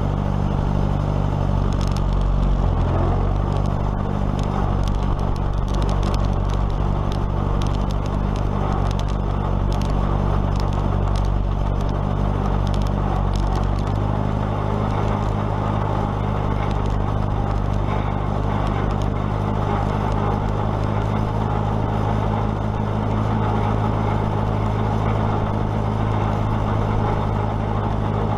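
Case tractor engine running steadily, with light clicking and clatter over the first half; the engine note shifts about halfway through.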